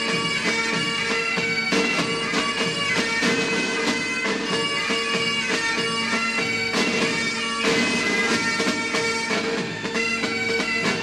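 Bagpipe music: a melody of changing notes over a steady, unchanging drone.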